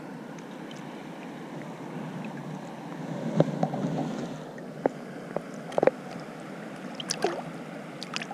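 Steady flowing river water, with splashing about three seconds in as a trout is lifted from a landing net and handled at the surface. A few sharp clicks follow as the fish is lowered back into the water for release.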